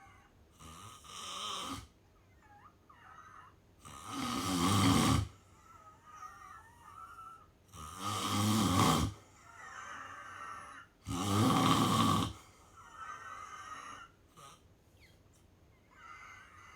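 A sleeping person snoring: four snores about three and a half seconds apart, the first weaker and the last three loud, each lasting about a second, with quieter breathing between them.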